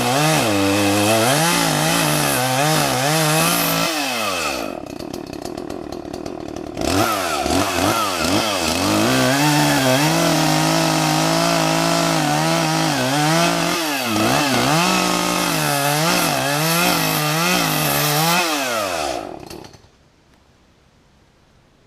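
Chainsaw running under load, its revs rising and falling as it cuts wood. It goes quieter for about two seconds early on, runs hard again, and stops a couple of seconds before the end.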